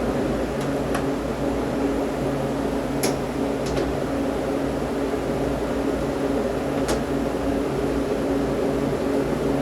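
Air-conditioning unit running with a steady mechanical hum made of several steady tones, with a few light clicks.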